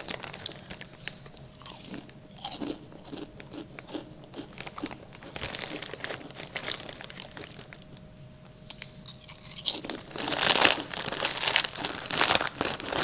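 A person crunching and chewing Zapp's kettle-style potato chips with the mouth closed, in short scattered crunches. About ten seconds in, a louder and denser burst of crackling follows.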